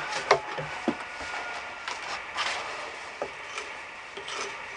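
A hatchet's edge scraping and prying bark off a white pine log, with the bark cracking and tearing loose in irregular sharp clicks and knocks.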